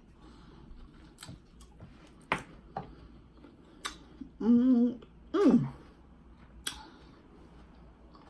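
Mouth noises of someone eating cantaloupe: several sharp wet clicks and smacks spaced a second or more apart, and a hummed "mm" followed by a short vocal sound falling in pitch a little after the middle.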